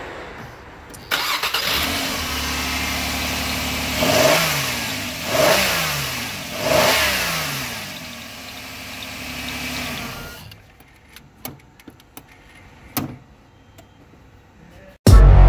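Nissan Maxima's 3.0-litre V6 starting about a second in and idling, then blipped three times with the throttle, the revs falling straight back to idle each time now that the throttle no longer catches on the intake-boot clamp. The engine is switched off about ten seconds in, followed by a few clicks.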